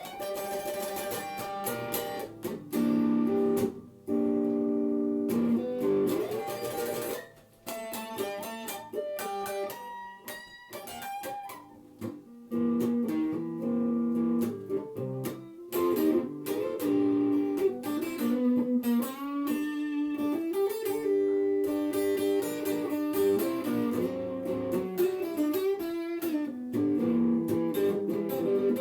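Guitar playing an instrumental blues solo of single-note lines, with some notes bent up in pitch.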